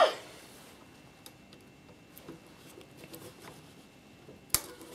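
Faint metal ticks of circlip pliers working at a circlip on the belt sander's gear shaft, then one sharp click about four and a half seconds in as the circlip comes off.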